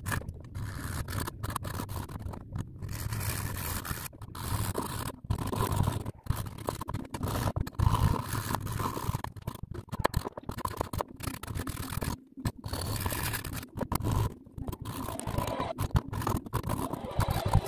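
Hacksaw blade sawing back and forth through the plastic casing of a USB wall charger, a steady rasping scrape broken by many short gaps.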